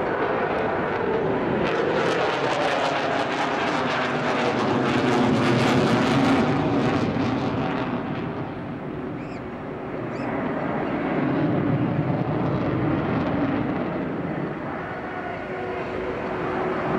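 Twin-engine jet roar of an RAF Eurofighter Typhoon in afterburner, loud and crackling, loudest about six seconds in. It fades around nine seconds in as the jet draws away, then swells and fades again as it turns back round.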